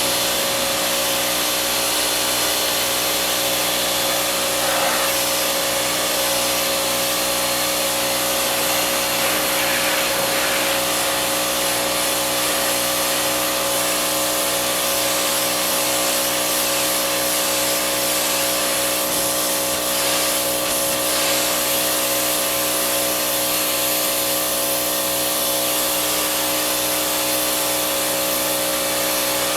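Powered yard machine running steadily: a constant motor hum with a strong hiss over it.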